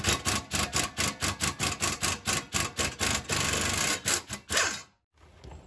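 3/8-drive nano ratchet ratcheting quickly on a 12-inch extension and swivel, a rapid series of raspy strokes about six a second, backing out an exhaust flange bolt that has just been broken loose. About three seconds in the clicks run together into a steady buzz for a moment, then a few more strokes, and it stops about a second before the end.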